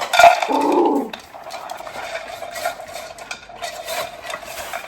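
Dogs eating air-dried, jerky-like dog food: faint chewing with scattered clicks, after a louder short sound in the first second.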